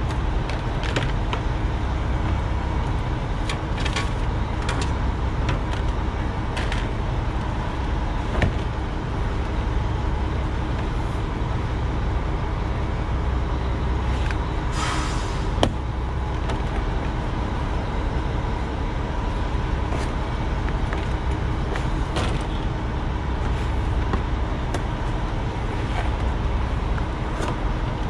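Steady low rumble of an idling truck engine, with scattered light clicks and rustles of stiff plastic and cardboard being handled and a brief rush of hiss about fifteen seconds in.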